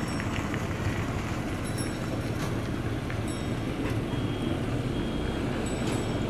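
Steady low rumble of diesel road-building machinery, a motor grader and a road roller, mixed with passing motorbike traffic. Two short high beeps of a reversing alarm come past the middle.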